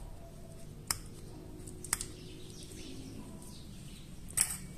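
Small metal clicks from handling the Beretta 950 pistol's trigger and its spring: two light clicks about a second apart, then a louder clack near the end as a small part is set down on the bench.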